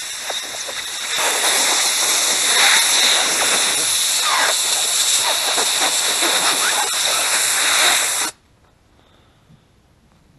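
Compressed-air blow gun hissing in one long, loud blast as air is blown through a small carburetor part to clear it, stopping abruptly about eight seconds in.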